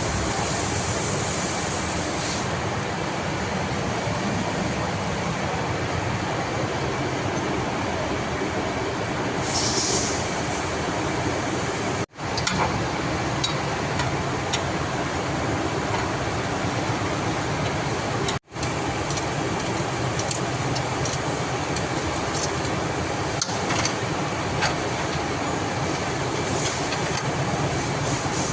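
Steady mechanical running noise of machinery with a high hiss and scattered faint clicks, breaking off for an instant twice.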